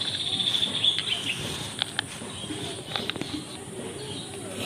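A bird's rapid chirping trill for about the first second, followed by a few light clicks.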